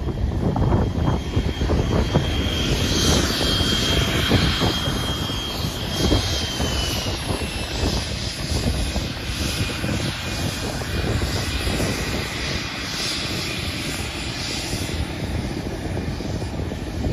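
Cirrus Vision SF50 VisionJet's single Williams FJ33 turbofan at takeoff power during the takeoff roll: a steady high whine over a deep rumble. The whine drops slightly in pitch about six seconds in as the jet moves past.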